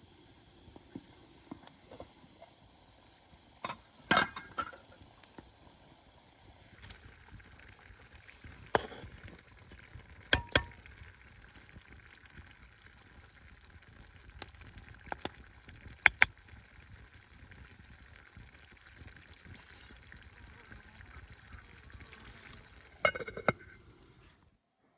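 Stew simmering in a pot, a steady bubbling hiss that grows fuller about a third of the way in, with several sharp clinks of utensils against the pot.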